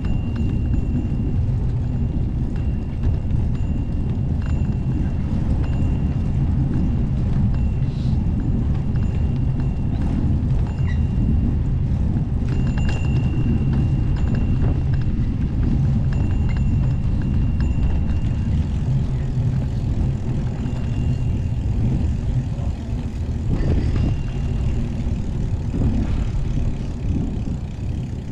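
Steady low rumble of wind and road noise picked up while riding a bike, with a faint thin whine that comes and goes.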